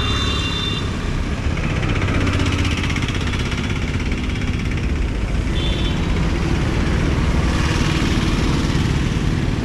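Steady motor traffic on a city road, engines running as vehicles pass. Short high beeps sound at the very start and again about six seconds in.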